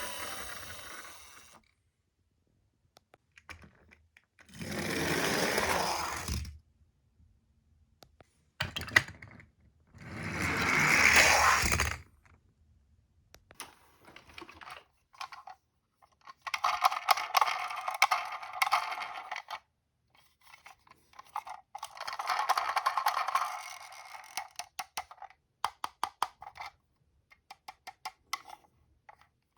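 Tomica die-cast toy ambulances rolling down a slope in four runs of two to three seconds each; the later runs rattle and clatter. Scattered clicks and knocks of the small metal cars being handled and set down come between the runs.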